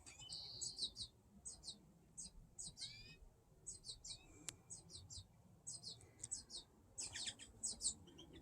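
Fledgling American goldfinch begging: short, high chirps repeated in quick series over and over, some sliding down in pitch. A single faint click comes about halfway through.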